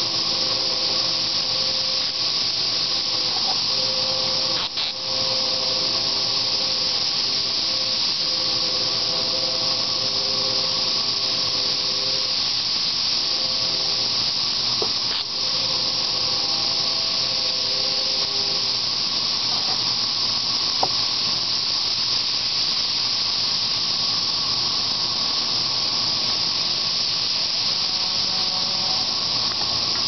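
A dense chorus of 13-year periodical cicadas, a loud, steady, continuous high-pitched hiss that does not let up.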